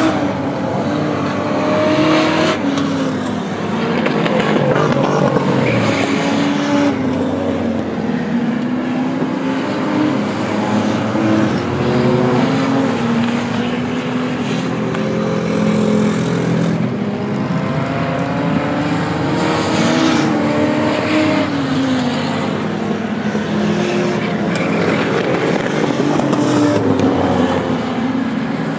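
Several V6 enduro race cars running together on a short oval, their engines overlapping and rising and falling in pitch as the pack laps and passes.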